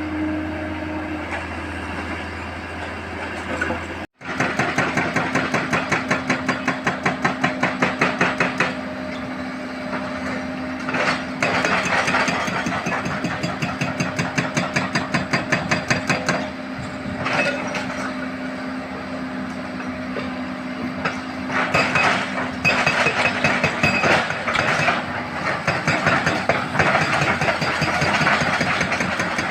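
Heavy diesel engine of mining equipment running with a rapid pulsing beat that swells and eases in stretches. A steady hum comes first and is cut off suddenly about four seconds in.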